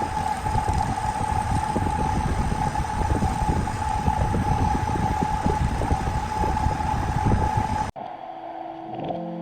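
Wood lathe running with a steady high whine over a rough, irregular low rumble. It cuts off suddenly about eight seconds in, and music with held notes starts near the end.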